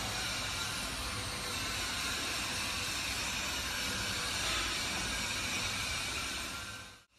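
Stainless steel three-dimensional motion drum mixer running, its drive and swinging drum giving a steady mechanical noise with faint steady tones. The sound fades out near the end.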